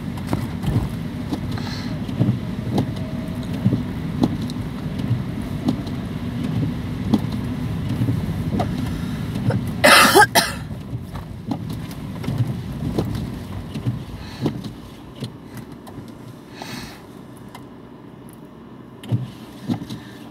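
A car moving slowly on a snowy road, heard from inside the cabin: a low, steady rumble with scattered small clicks and rattles. A short, loud hiss comes about ten seconds in, and the rumble turns quieter after about fifteen seconds.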